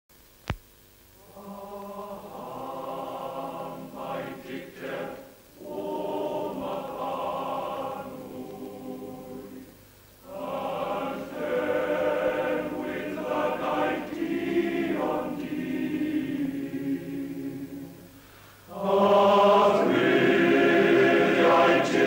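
Welsh male voice choir singing in long sustained phrases with short breaks between them; the last phrase, starting about nineteen seconds in, is the loudest. A single sharp click comes just before the singing begins.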